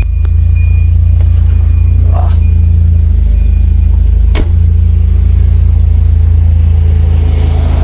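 Volvo B230F 2.3-litre four-cylinder engine idling steadily, a low even rumble, with a single sharp click about four and a half seconds in.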